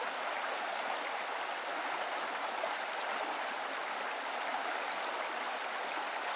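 Water pouring steadily from a pipe outlet and splashing into a bucket of water.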